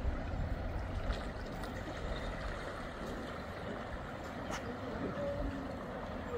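Steady outdoor background rumble and hiss with no single distinct event, only a few faint ticks.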